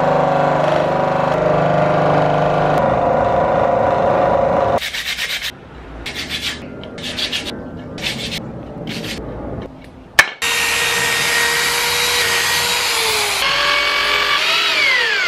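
Electric scroll saw running and cutting a laminated carbon-fibre plate, then a few seconds of short, irregular scraping strokes. After a sharp click, an electric drill runs steadily and winds down with falling pitch near the end.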